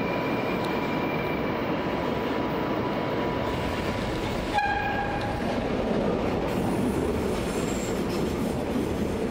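Hamburg S-Bahn electric train running along the track with a steady rumble of wheels on rails, growing a little louder in the second half as it passes close by. About halfway through, the driver gives one short horn toot as a greeting.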